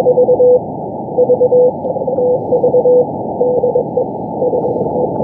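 Shortwave CW Morse code from the Israel Navy coast station 4XZ on 4331 kHz, heard through a receiver's narrow filter: a tone of about 500 Hz keyed in dits and dahs over steady hiss, some elements broken up. The station is sending its VVV DE 4XZ calling-all-stations marker.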